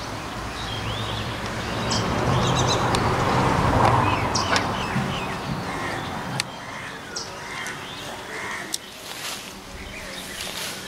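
Outdoor ambience of birds calling, among them crows cawing, over a broad rushing noise with a low hum that swells to its loudest about four seconds in and then fades.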